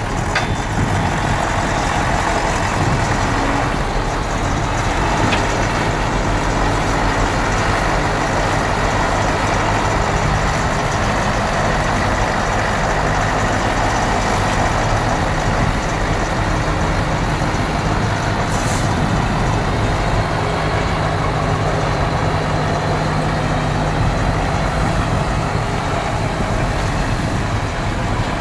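Heavy recovery truck's diesel engine running steadily at low speed while it tows a tractor unit on a rigid tow bar.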